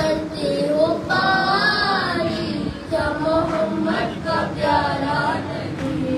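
A boy's voice chanting a noha, a Shia mourning lament, into a microphone without instruments, in long wavering held notes.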